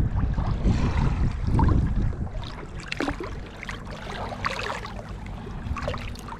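Water splashing and dripping at a kayak's side as a small thornback ray is released by hand and swims off, with the sharpest splashes about three to five seconds in. Wind rumbles on the microphone throughout.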